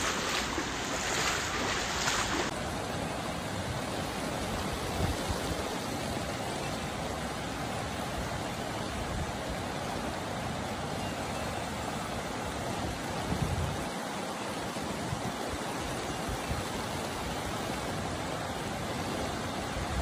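A river in flood rushing steadily, a continuous roar of fast water. It is preceded, for the first couple of seconds, by a brighter hiss of rain and water.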